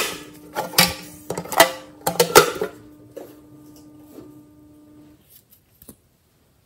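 Sharp clicks and knocks of a decorative box being handled and opened by hand, clustered in the first three seconds. A faint held note runs underneath and stops about five seconds in, and a few small clicks follow near the end.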